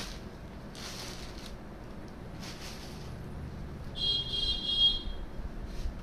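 Soft rustling of blouse fabric being handled and unfolded. About four seconds in, a shrill, high-pitched buzzing tone sounds for about a second.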